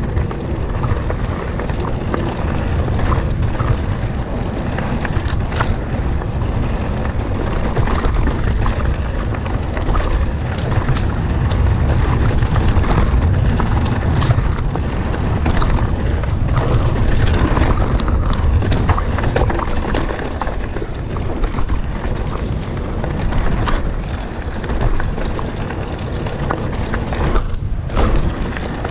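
Wind buffeting the microphone during a fast mountain-bike descent, over the knobby tyres rumbling on a dirt trail and the bike rattling and clacking over roots and bumps. It drops briefly quieter about a second before the end.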